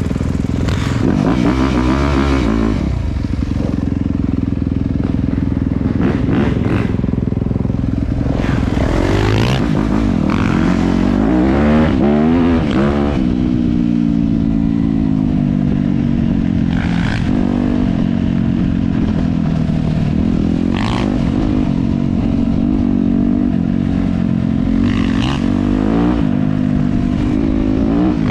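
Dirt bike engine running hard on a trail, revving up and down repeatedly as the throttle is opened and closed, with rushing noise throughout.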